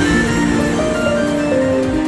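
Background music from a Marathi song, here an instrumental passage of held notes moving stepwise in pitch, with no singing.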